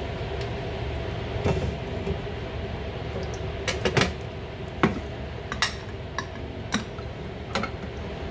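Scattered clinks and knocks of a metal spatula on a wok and a small tin can being handled and set down on the counter, over a steady kitchen hum.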